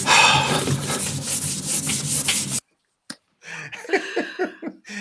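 Dry-erase marker rasping across a whiteboard in quick, closely spaced writing strokes, cutting off abruptly a little over halfway through. Short voice sounds follow near the end.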